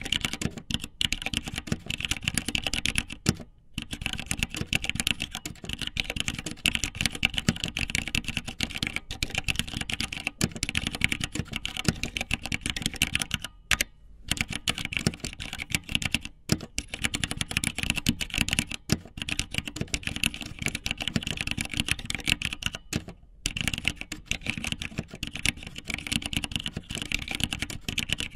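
Rapid, dense clicking and tapping in long runs, broken by a few brief pauses.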